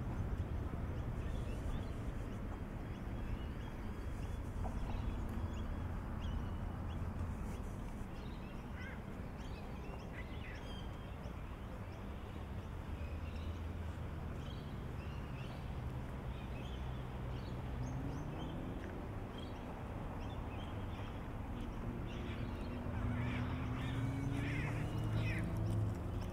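Outdoor ambience: a steady low rumble with scattered short bird calls. In the second half a low hum rises slowly in pitch and grows a little louder toward the end.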